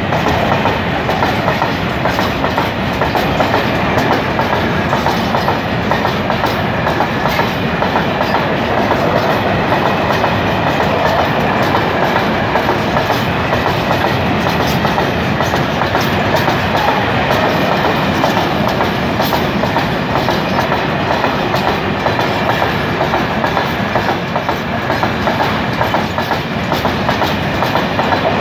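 Freight train of covered hopper wagons rolling past close by: a steady, loud rolling noise from the wagon wheels on the rails, with frequent clicks as the wheels cross the rail joints.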